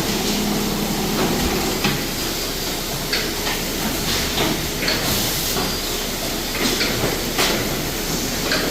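Automatic weighing-and-bagging machine line running: a steady low hum under irregular sharp hisses and clanks, about every second or two.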